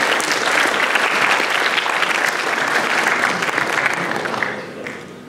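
Conference audience applauding, a dense clapping that fades out near the end.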